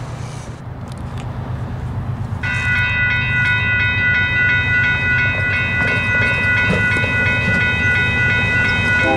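Railroad grade-crossing warning bell ringing at a steady, even rate as the crossing signals activate, starting abruptly a couple of seconds in. Near the end a second, lower set of steady tones joins it.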